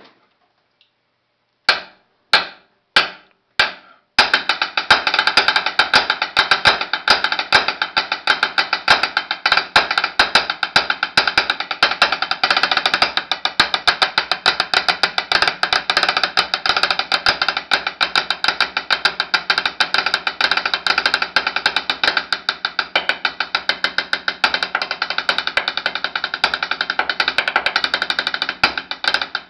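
Drumline-style solo played with drumsticks on a wooden board. It opens with four single, evenly spaced strikes about half a second apart. About four seconds in, it breaks into a dense, unbroken stream of fast stick strokes.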